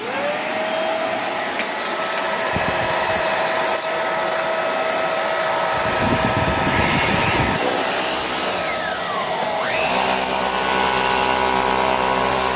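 Bissell pet vacuum cleaner switched on: the motor spins up with a rising whine and then runs steadily with a loud rush of air. About nine seconds in the whine dips in pitch and comes back up. This is the final test after repairing the beater bar motor's broken resistor wire, and the brush roll now spins.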